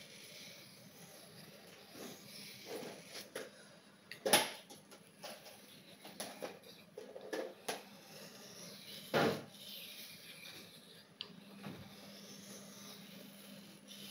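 Knife and sharpening gear being handled: irregular metal clinks and short scrapes, with two louder clattering knocks about four and nine seconds in.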